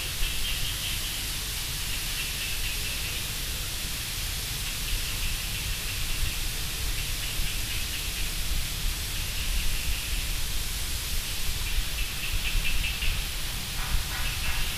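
Steady background hiss with a low rumble underneath, without speech or music: the open microphone's noise between narration lines.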